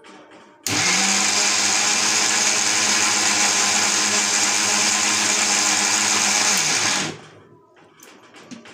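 Electric mixer grinder with a stainless-steel jar grinding chutney ingredients (mango, chillies, garlic and onion). It starts suddenly a little under a second in, runs steadily and loudly for about six seconds, then slows and stops about seven seconds in.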